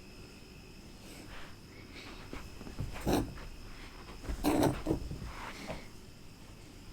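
Pet rabbit grunting in short, sharp bursts: one about three seconds in and a quick pair about a second and a half later.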